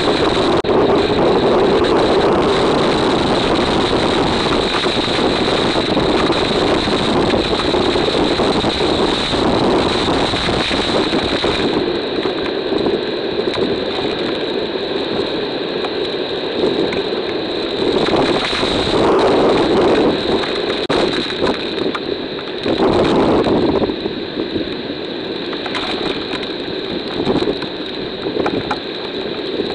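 Hurricane-force wind buffeting a trail camera's microphone, mixed with heavy rain. The sound is a continuous loud rushing that swells in gusts, strongest about 19 and 23 seconds in.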